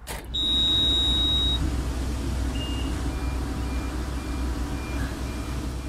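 Ignition key of a Grove mobile crane switched on with a click, followed by the cab control system's power-up beeps: one long high beep lasting about a second, then a string of short, lower beeps about every half second, over a steady low hum.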